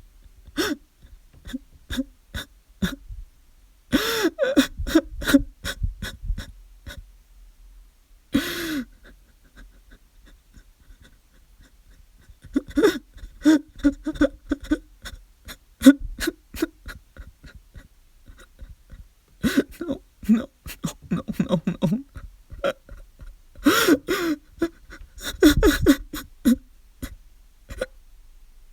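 A man crying: broken sobs and whimpers with sharp, gasping in-breaths, coming in several fits with short pauses between them.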